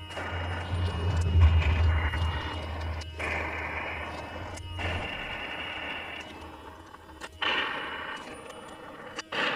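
Suction through a clear tube drawing honey out of opened stingless bee (Heterotrigona itama) honey pots: a rushing hiss of air and honey in stretches, broken by short sudden gaps. A low hum runs under it and stops about five seconds in.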